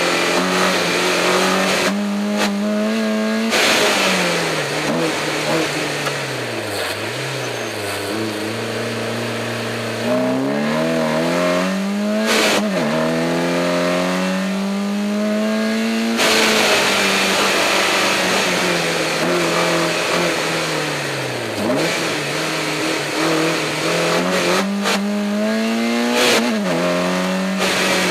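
BMW E30 318is's four-cylinder engine revving hard through a slalom run, its pitch repeatedly dropping away when it comes off the throttle and climbing again under acceleration.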